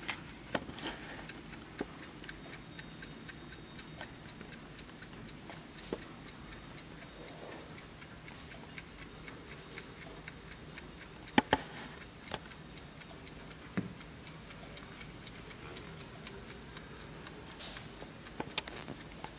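Vintage Schatz mantel clock's mechanical movement ticking steadily, with a few louder sharp clicks, the loudest about eleven and a half seconds in.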